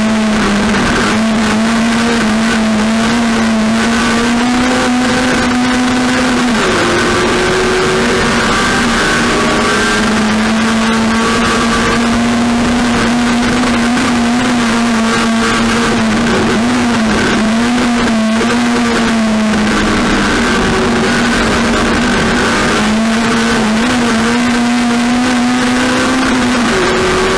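Race car engine running hard at steady high revs, its pitch holding and then dipping briefly a few times before coming back up.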